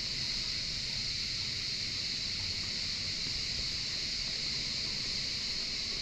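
Steady, high-pitched buzzing of a cicada chorus, unbroken and even, with a low rumble of wind on the microphone beneath it.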